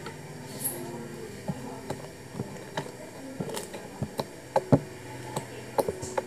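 Thick, butter-like slime being squeezed, poked and stretched by hand, giving irregular sticky clicks and pops. The loudest pop comes about three quarters of the way through.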